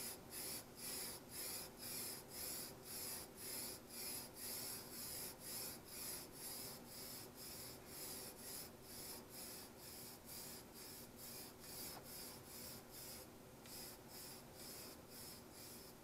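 Aerosol spray-paint can spraying in short hissing bursts, about two a second, as a sump pump housing is given its first coat of paint. The bursts break off briefly near the end, then a few more follow.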